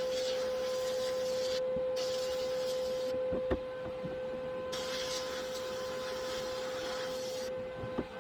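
A steady machine hum, with a hissing rush of air that switches on and off in stretches of one to three seconds.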